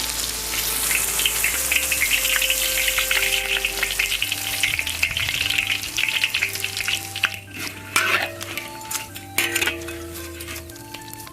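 Red sausages frying in hot oil. A steady sizzle fills the first several seconds, then thins into scattered crackles and pops, with a few louder pops in the later part. Background music with held notes plays underneath.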